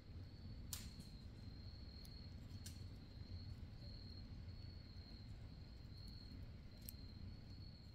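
Faint, steady high-pitched trilling of crickets in a night wood, over a low background rumble, with a few brief sharp clicks.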